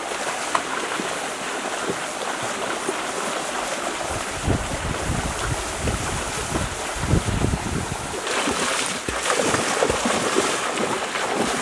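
Shallow river water rushing steadily, with splashing as people wade through it. Wind rumbles on the microphone in the middle.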